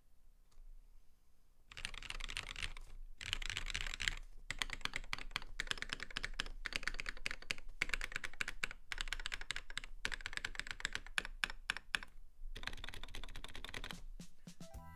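Typing on a mechanical keyboard with Poli Panda tactile switches (Kailh Polia stems in BSUN/YOK Arctic Panda housings), lubed and filmed: a fast run of key clicks that starts a couple of seconds in and carries on, with a brief pause, almost to the end.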